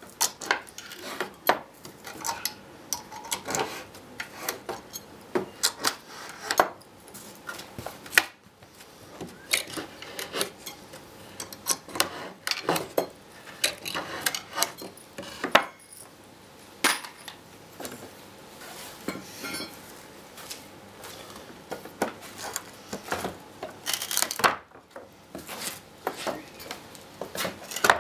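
Steel pry bar clinking and knocking against nails and boards while nails are levered out of a wooden pallet: a run of irregular sharp metallic clicks and knocks.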